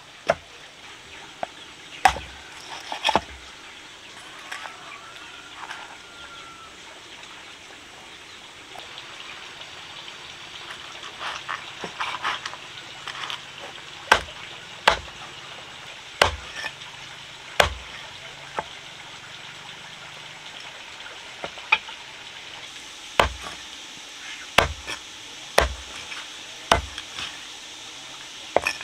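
Irregular sharp knocks on wood, singly and in quick pairs, over a steady faint hiss; from about two-thirds of the way in they come roughly once a second.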